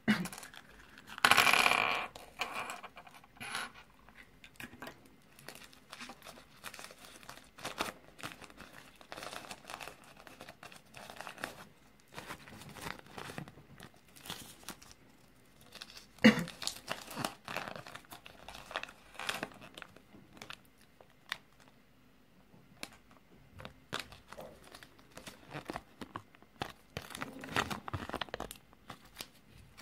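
Hands handling a Kinder Surprise egg's yellow plastic capsule and small plastic toy pieces, with scattered clicks and taps of plastic on a table, and a paper leaflet rustling and crinkling as it is unfolded. There is a loud rustle about a second in and a sharp click about halfway through.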